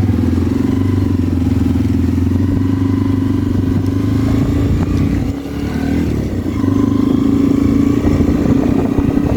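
Motorcycle engine running steadily while riding along a road. About halfway through it eases off briefly, then picks up again.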